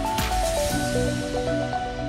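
Background music: a melody of short notes over held bass notes, with the drum beat dropping out just after the start.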